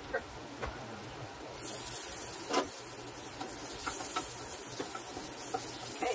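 Food sizzling in a skillet on a gas stove, the pan juices nearly cooked off. The sizzle gets suddenly louder when the lid comes off about one and a half seconds in. A metal spoon clinks against the pan, loudest once a little after that, then stirs with lighter ticks.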